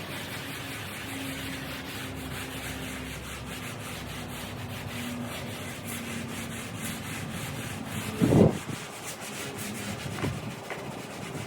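Pressure washer spray hissing steadily on a concrete garage floor, with a faint steady hum from the machine underneath. A short, louder thump about eight seconds in.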